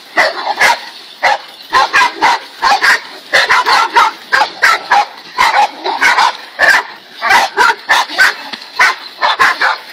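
Several dogs barking rapidly and repeatedly, about two to three sharp barks a second with some higher yips among them, as they hold a large snake at bay.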